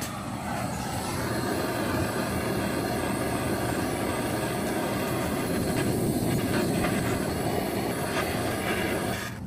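Hand-held gas torch burning with a steady flame, heating the exhaust pipe around a seized oxygen sensor to free it. The flame noise stays even, then cuts off near the end.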